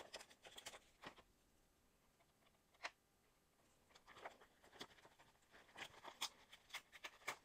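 Faint crinkling and light clicks of paper and a plastic sleeve being handled, in two spells with a lull in the middle.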